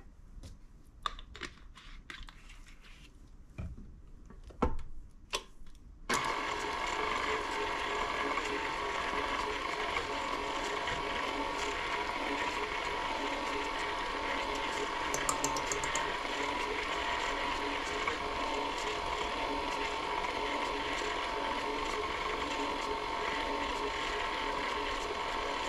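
A few clicks and knocks, then about six seconds in a red KitchenAid tilt-head stand mixer switches on and runs steadily, its flat beater mixing the creamed butter, sugars, eggs and vanilla.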